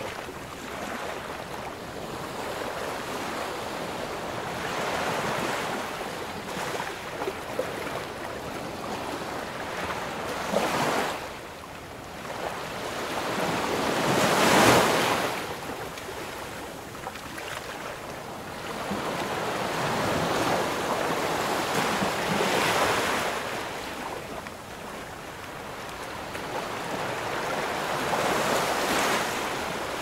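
Surf: waves washing in and fading away every few seconds, one swell about halfway through louder than the rest.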